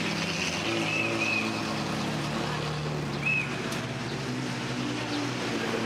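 McLaren Senna's twin-turbo V8 running at low revs as the car rolls past, a steady low engine note.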